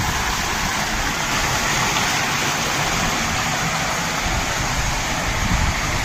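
Wall-mounted terrace water fountain running, with water falling steadily from three spouts into a stone trough: a continuous splashing hiss with a low, uneven rumble underneath.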